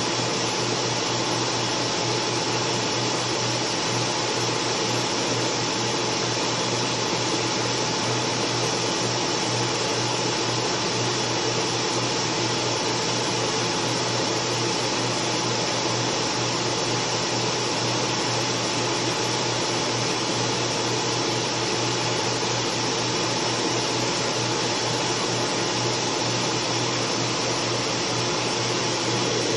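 Steady fan and air-pump noise of a 60 W CO2 laser engraving machine working as it engraves wood, with a faint steady whine over it.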